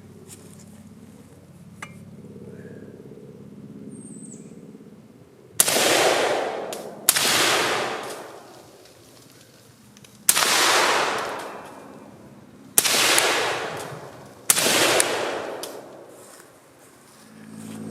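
Five suppressed rifle shots from a 5.56mm AK fitted with a Dead Air Wolverine silencer, fired singly at uneven intervals of one to three seconds. Each shot is followed by a second or two of echo dying away.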